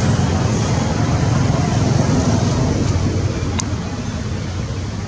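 Steady low rumbling noise that eases a little after about three seconds, with a single faint click near the end.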